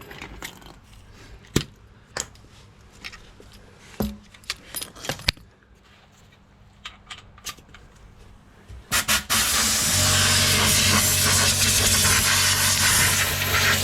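Scattered light clicks and taps, then about nine seconds in a compressed-air blow gun starts with a couple of short bursts and goes into a loud, steady hiss over a low hum, blowing sanding debris off a wheel rim's bead seat.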